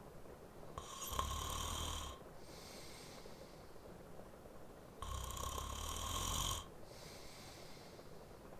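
A man snoring in his sleep: two snores about four seconds apart, each lasting about a second and a half, with softer breaths between them.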